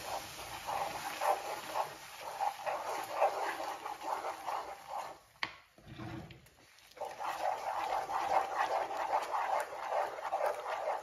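Wooden spoon stirring and scraping thick, sticky sugar wax around a nonstick frying pan, with water just worked in to soften wax that had set too hard. The stirring goes as a steady run of small sticky clicks and scrapes, breaks off for about a second and a half around the middle with a single click and a dull knock, then resumes.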